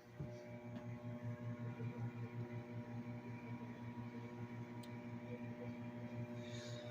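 Hamilton Beach 1,000-watt microwave oven switching on just after the start and running with a steady hum.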